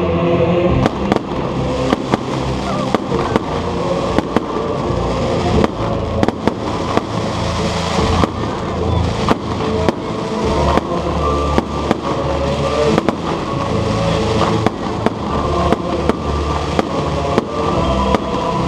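Fireworks bursting overhead: a rapid, irregular series of sharp bangs and crackles, several a second, over music playing throughout.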